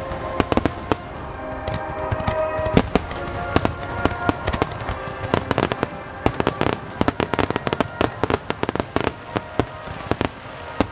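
Barrage of aerial firework shells bursting in rapid succession: dozens of sharp bangs and crackles, thickest from about five seconds in. Music with held tones plays underneath.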